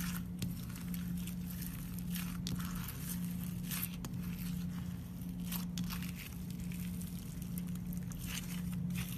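Clear slime packed with iridescent glitter flakes being pressed, kneaded and stretched by hand, giving irregular sticky crackles and squishes. A steady low hum runs underneath.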